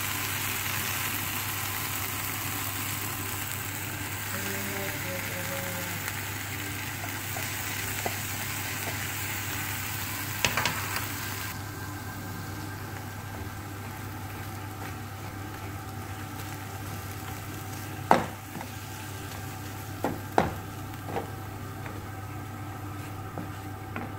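Onion, pepper and tomato sizzling in a frying pan, with a wooden spoon knocking and scraping against the pan a few times in the second half as flaked canned tuna is stirred in. The sizzle drops to a quieter level about halfway through, over a steady low hum.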